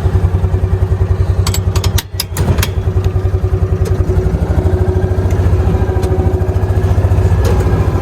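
Small gasoline engine of a side-by-side UTV running steadily under way, with a fast even pulse and a low hum. About two seconds in it briefly drops off, with a few sharp clicks and rattles, then carries on.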